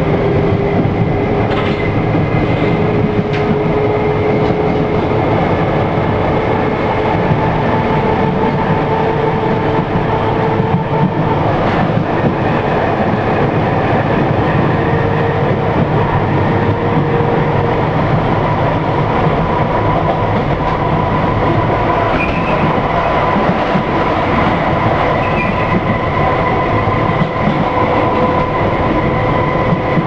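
Inside a London Underground D stock train running between stations: steady wheel and running noise with a motor whine that climbs slowly in pitch as the train gathers speed. There are a few sharp clicks.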